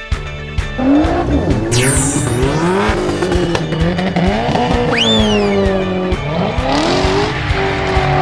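Race car sound effects: engines revving up and down in repeated rising glides, with a tire squeal about five seconds in, over background music with a steady beat.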